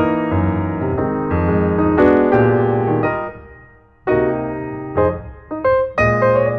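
Background piano music, played as a run of struck notes. It fades almost away about three and a half seconds in, then starts again abruptly about four seconds in.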